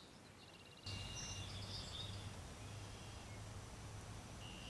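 Quiet outdoor ambience: birds chirping and an insect-like trill, with a steady low rumble coming up about a second in. No gunshots.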